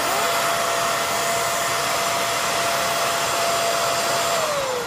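Hoover Air Lift Deluxe upright vacuum cleaner running with a steady whine. Near the end its motor winds down, the pitch falling as it is switched off.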